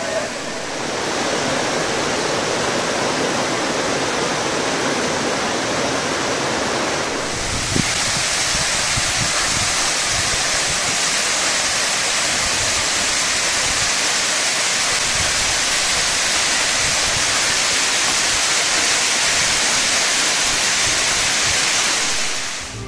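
Steady rush of falling water from a waterfall, growing a little fuller and louder about seven seconds in.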